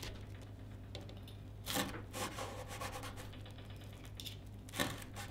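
Knife and fork cutting through a crisp-skinned fried pempek on a wooden cutting board: scattered scraping and rubbing of the blade against the crust and board, with a few sharper scrapes about two seconds in and near the end.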